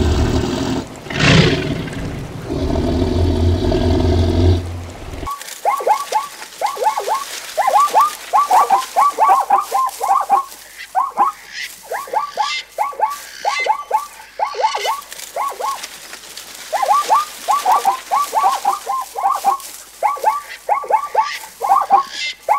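A loud low rumble for about the first five seconds, which cuts off suddenly. Then a long run of short, quick chirping calls, each falling in pitch, coming in clusters of several a second with brief gaps between.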